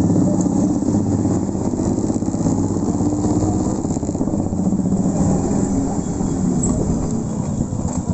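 Escorts-Yamaha RX 100's two-stroke single-cylinder engine running at low revs as the motorcycle rolls slowly, its rapid pulsing beat rising and falling a little with the throttle.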